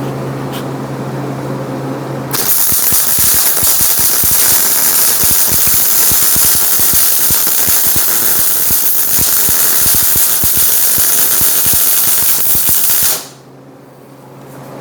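Electric welding arc crackling steadily for about ten seconds, starting a couple of seconds in and cutting off abruptly near the end, as a bead is run at a hotter setting onto steel. A steady low hum is heard before and after the arc.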